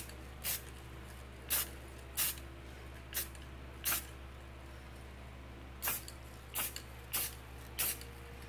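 Aerosol spray-paint can giving about nine quick spritzes, short hisses at uneven intervals, over a steady low hum.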